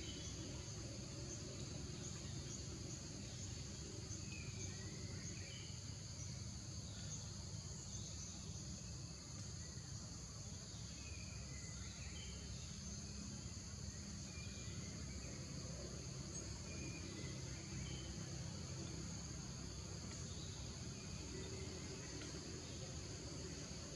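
Steady high-pitched insect chorus in forest, with occasional short bird chirps and a low steady rumble underneath.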